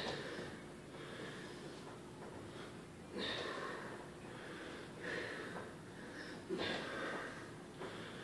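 Heavy breathing of people exercising: short, noisy puffs of breath about every one and a half to two seconds, the breath of exertion during repeated back-extension lifts.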